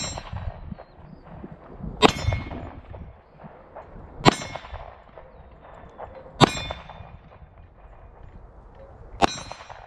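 9mm pistol firing a slow string of single shots about two seconds apart, each a sharp crack followed by the ringing clang of hanging steel plate targets being hit.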